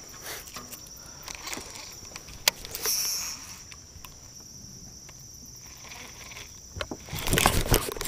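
Insects chirring in a steady high-pitched buzz, with scattered small clicks and rustles of fishing tackle being handled. Near the end comes a louder rush of rustling noise.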